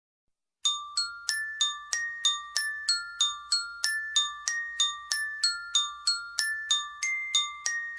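A bell-like melody of single struck notes, glockenspiel-like, beginning just under a second in and going on at an even pace of about three notes a second, each note ringing briefly before the next.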